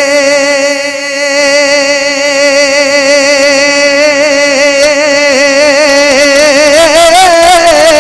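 A man's voice holding one long sung note through an amplified microphone in a naat recitation. The wavering of the note widens about halfway through and the pitch lifts slightly near the end, over a steady lower drone.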